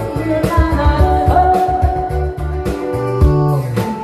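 A woman singing a Korean trot song into a headset microphone over an amplified backing track with a steady beat.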